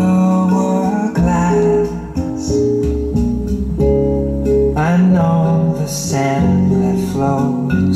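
A recorded song in an instrumental passage led by acoustic guitar, played back over loudspeakers driven by a Technics SE-9021A stereo DC power amplifier.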